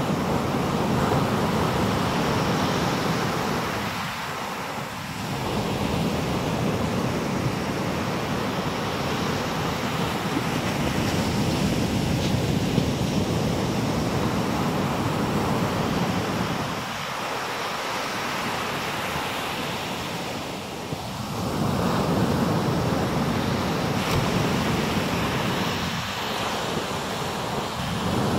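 Atlantic Ocean surf breaking on a sandy beach: a steady rushing wash of waves that eases off briefly a few times between breakers.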